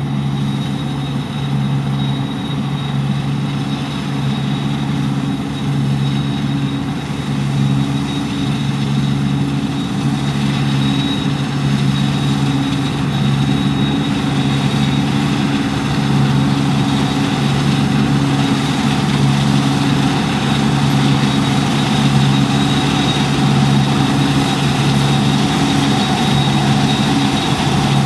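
Deutz-Fahr 6095 HTS combine harvester running steadily under load, a deep engine drone with a thin, steady high whine above it.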